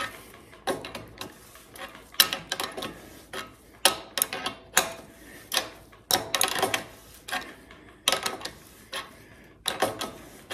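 Adjustable wrench clicking and clanking against a bottom bracket tool as a bicycle's threaded bottom bracket cup is tightened, with irregular metal clicks as the wrench is lifted off and refitted between turns.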